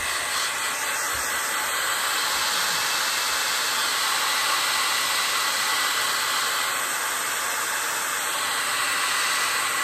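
Hand-held hair dryer running steadily on its fan, a constant rush of air with a faint steady whine, blowing on a canvas to dry wet acrylic paint.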